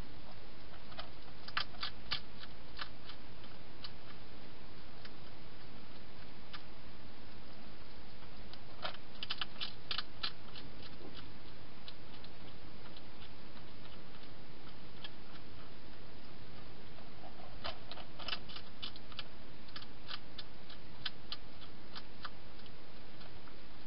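Wild hedgehog feeding at a dish, making sharp clicking mouth sounds that come in three quick bouts, about a second in, near the middle and over the last third, with scattered single clicks between them and a steady hiss underneath.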